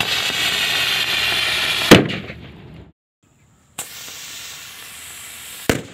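Diwali rocket firework strapped to a small boat, hissing loudly as it burns on the water, then going off with a sharp bang about two seconds in. After a short gap, a second, quieter hiss ends in another bang near the end.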